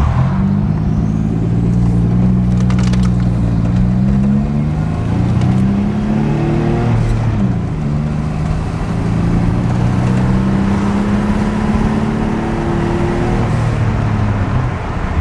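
1986 Nissan 300ZX's turbocharged VG30ET V6 being driven: the engine note climbs as the car accelerates, falls back at a couple of gear changes in the first half, then holds fairly steady.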